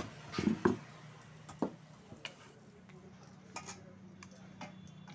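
Scattered knocks and clinks of steel dishes and a wooden rolling pin as small rounds of dough are rolled out and laid on a steel plate, the loudest knocks about half a second in, over a steady low hum.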